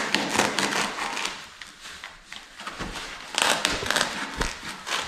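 A foam pool noodle being cut with a blade: irregular crunching, scraping strokes of the blade through the foam.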